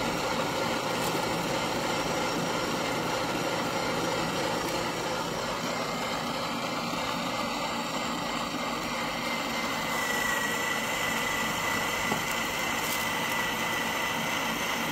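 Electric meat grinder's motor running steadily while it grinds crackers into crumbs, with a thin high whine coming in about ten seconds in.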